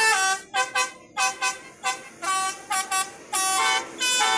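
Basuri telolet musical air horn playing a tune: a quick run of short toots stepping between a few pitches, with brief gaps, then two longer held notes near the end.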